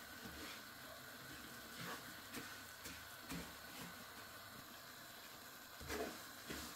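Ground chana, moong and mash dal roasting in ghee in a non-stick frying pan with a faint steady sizzle, while a wooden spoon scrapes through the mixture in strokes, several about half a second apart and a louder one near the end. The dal is turning light and crisp as it roasts.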